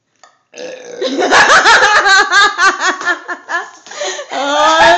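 People laughing hard: a rapid run of short laughing bursts, then a long drawn-out voiced sound near the end.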